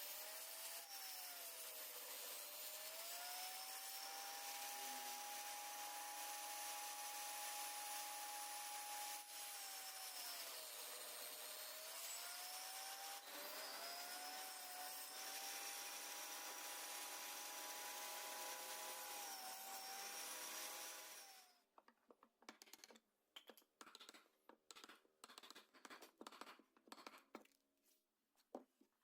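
A power tool's motor running on wood, its pitch dipping and recovering several times as it slows under load. It stops after about twenty seconds, followed by light, scattered scraping and tapping.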